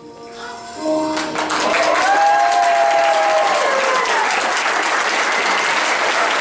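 The last notes of a recorded song fade out, then the audience breaks into loud applause from about a second in, with one long cheer that slides down in pitch near the middle.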